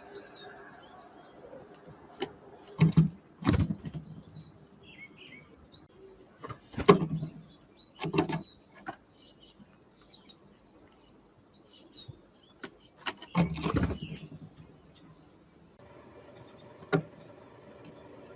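Small birds chirping faintly at a feeder, with several loud, sudden knocks and thumps close to the microphone.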